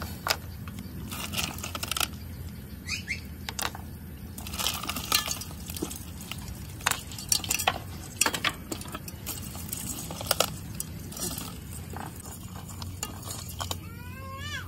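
Snail shells clinking and knocking against the inside of an aluminium cooking pot as handfuls of snails are dropped into the broth: a run of irregular sharp clinks. A short pitched animal call is heard near the end.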